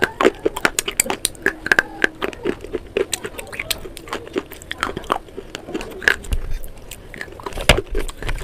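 Slate pencils being bitten and chewed: a dense run of sharp, brittle crunches and crackles as the slate breaks between the teeth.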